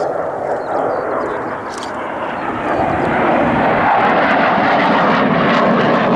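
Aircraft engine roar from a military aircraft passing at an airshow. It swells louder about halfway through and stays at that level.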